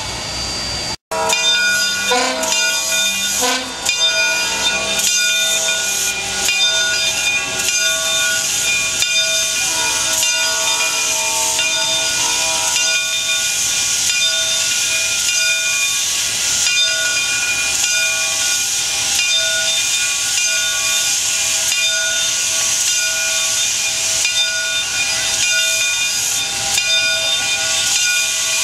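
Steam locomotive moving slowly with its cylinder cocks open: a loud, steady hiss of steam jetting out beside the cylinders. Steady whistling tones ring over the hiss, several of them together for roughly the first dozen seconds.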